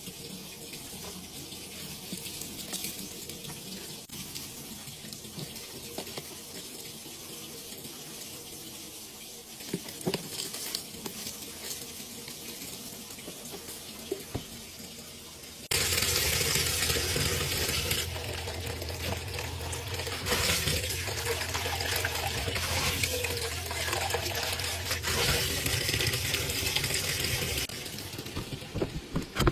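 Water running and splashing in a washing machine tub full of detergent and bleach suds. About halfway through it turns suddenly louder, with a steady low hum under the splashing.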